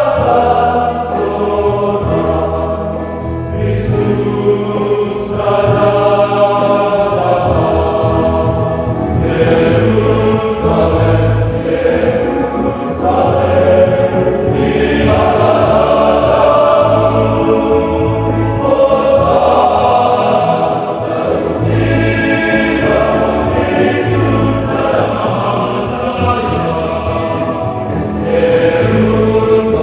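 Male choir singing an arranged Palm Sunday hymn in Indonesian, several voice parts held together in sustained chords.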